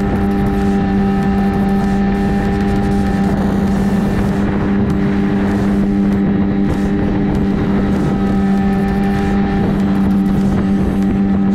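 A 9.8 hp outboard motor on an inflatable boat running at a steady, unchanging speed, with wind on the microphone.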